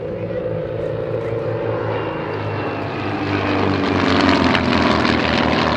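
Two Van's RV-4 light aerobatic aircraft flying past in formation, their piston engines and propellers growing louder towards the middle, with the engine note falling in pitch as they go by.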